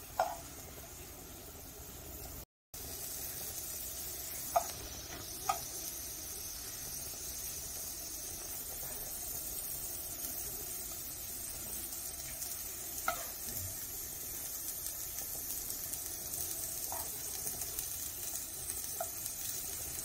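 Oil and masala sizzling steadily in a frying pan as stuffed bitter gourd pieces fry. A few sharp clicks come from a metal slotted spoon knocking the pan.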